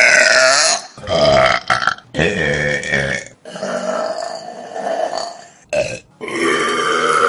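A string of loud human burps, one after another, each starting and stopping abruptly. The longest is drawn out for about two seconds in the middle.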